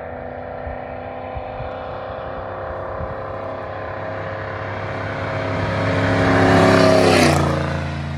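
A straight-piped pickup truck's exhaust drone coming closer and growing louder, then passing about seven seconds in with a drop in pitch and droning on as it goes away.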